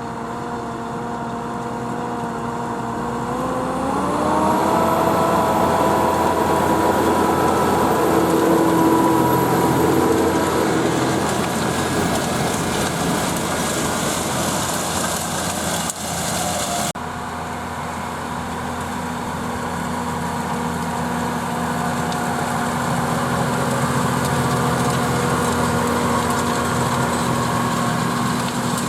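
Case IH Puma 240 CVX tractor's six-cylinder diesel running under load while pulling a Horsch Pronto 6 DC seed drill. The engine pitch rises about four seconds in and then holds steady, with a high thin whine over it for several seconds. The sound cuts abruptly partway through, and the engine then runs on steadily.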